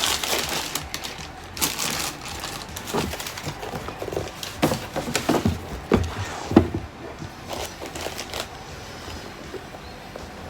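A cardboard shoe box and its paper wrapping being handled as the sneakers are unpacked: rustling with irregular knocks and taps, busiest in the first seven seconds and sparser after.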